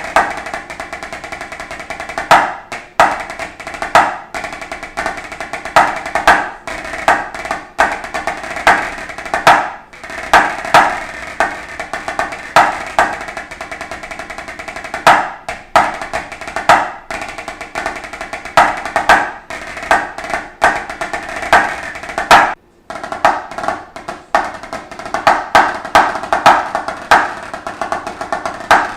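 Drumsticks playing on a white laminate practice pad: fast strokes and rolls with louder accented hits every second or two, and a short break about three-quarters of the way through.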